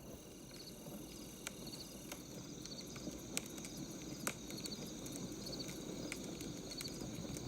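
Crickets chirping in an even rhythm over the low rush of burning firewood, with a few sharp crackles from the fire. The sound fades in at the start.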